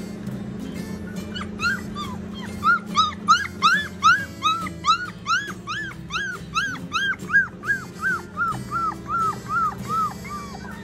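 A four-week-old Standard Bernedoodle puppy crying at the fence in a long run of short whining cries, each rising then falling, about three a second, starting a couple of seconds in.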